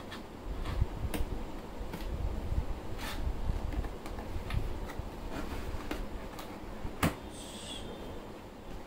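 Hands handling a cardboard statue box: the outer box slid off and the inner cardboard box's flaps opened, with scraping and light knocks and one sharp knock about seven seconds in.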